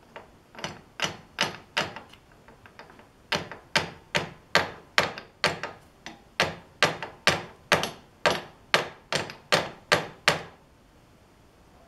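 Metal-on-metal tapping: a steel part of a lathe dog being knocked into position against the chuck with a small steel block, lining the pieces up for welding. Some two dozen sharp, ringing taps, a few faint ones early on, then a steady run of about two and a half taps a second that stops shortly before the end.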